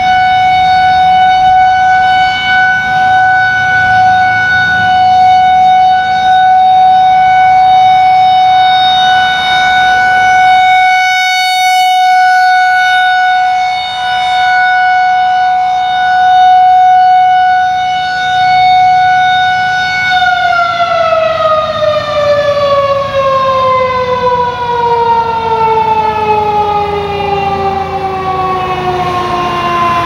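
Outdoor tornado warning siren sounding a loud, steady tone, then winding down with its pitch falling steadily from about two-thirds of the way through.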